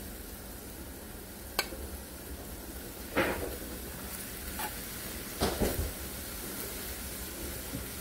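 Browned ground meat sizzling softly in a cast-iron skillet while a metal spoon scrapes it out into a glass dish. There are a few sharp scrapes and clinks, at about one and a half, three, and five and a half seconds in.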